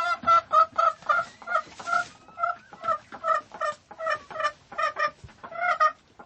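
Chicken clucking: a steady run of short clucks, about three a second.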